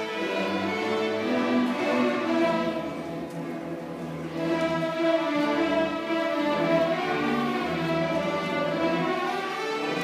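Student string orchestra of violins, cellos and double basses playing sustained bowed notes together. The sound eases to a softer passage about two and a half seconds in, then the full ensemble swells back in louder a couple of seconds later.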